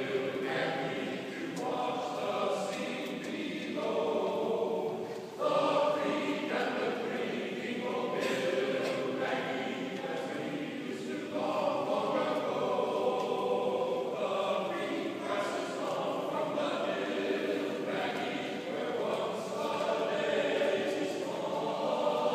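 Men's a cappella choir singing in harmony.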